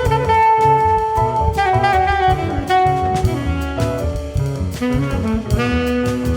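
Small jazz band playing: two saxophones hold long notes in harmony, changing note every second or so, over drums and bass.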